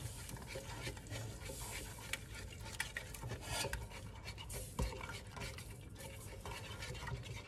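Wooden spoon stirring fruit and sugar in a stainless steel pot, with the hiss of sugar poured in from a metal bowl and scattered knocks of the spoon against the pot.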